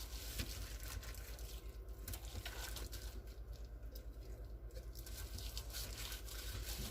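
Soft, irregular pattering and small wet clicks from gloved hands spreading sofrito over a raw chuck roast, over a steady low hum.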